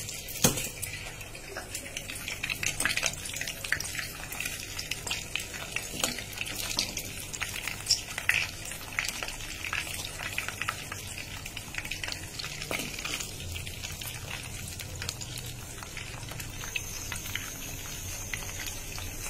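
Kebab patties frying in hot oil in a nonstick pan, sizzling with frequent small pops and crackles; the patties are still a little icy from the fridge.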